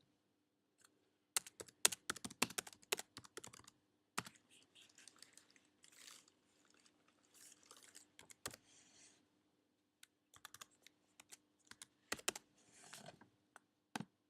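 Typing on a computer keyboard: a quick run of keystrokes at first, then scattered softer taps and a few single clicks.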